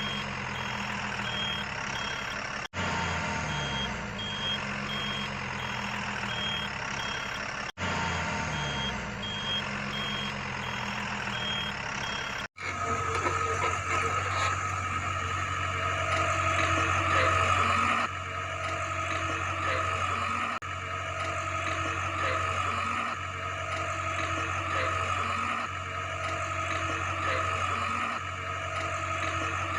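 A truck's reversing beeper sounds steadily over engine noise, broken by two brief cuts. About twelve seconds in, it gives way to a different steady engine drone with a pattern repeating every two to three seconds.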